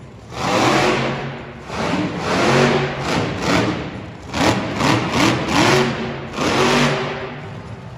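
Monster truck engine revving hard in a series of short throttle bursts, about seven surges, with the pitch climbing within several of them and dropping back between.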